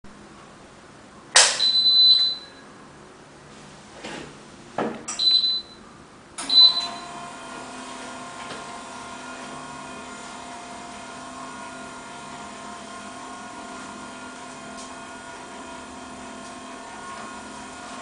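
Remote-controlled retractable clothes rack: the ceiling unit beeps three times, each beep opening with a click. About six seconds in, its motor starts a steady hum as the rack lowers on its folding scissor arms.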